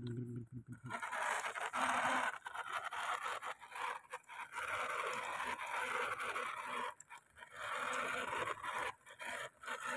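Hard plastic wheels of a toy dump truck rolling and scraping over gritty concrete as it is pushed by hand, in several pushes of a second or two with short pauses between.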